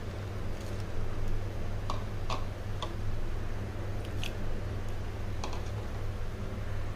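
Scattered light clicks and taps as whole green chillies and coriander are dropped into a plastic colander of raw minced meat, over a steady low hum.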